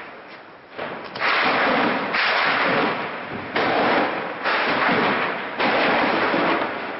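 Automatic gunfire in a street battle: about five loud bursts, each lasting roughly a second and starting and stopping abruptly.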